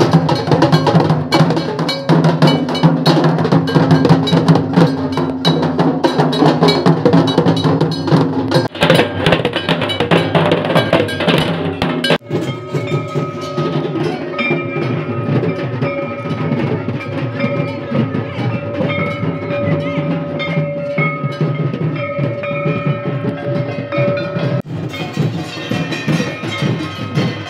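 Dhak drums beaten fast with sticks, with a kansar (brass gong plate) clanging along. About 12 seconds in the sound changes at a cut: the drumming goes on with a long steady high tone held over it, which stops about 25 seconds in.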